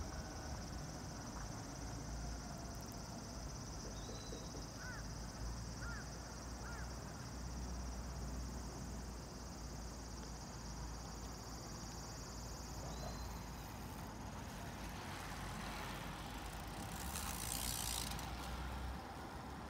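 Tama Monorail train running along its elevated track in the distance, with a steady high hiss that is taken for its brakes and fades out about two-thirds of the way through. Wind rumbles on the microphone throughout, with a gust near the end.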